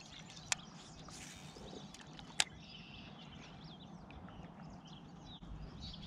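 Birds chirping faintly and intermittently in the background over quiet outdoor ambience, with two sharp clicks about half a second in and again about two and a half seconds in.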